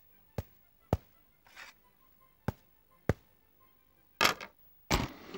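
Sparse sharp percussive hits at uneven spacing, with a few short swishing bursts and faint held tones between them: a stripped-down cartoon music beat.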